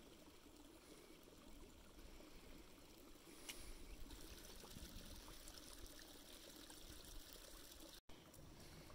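Near silence: a faint steady hiss with a few faint clicks.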